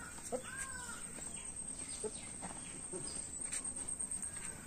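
Birds calling and chirping, with a couple of arched calls near the start and short scattered chirps after.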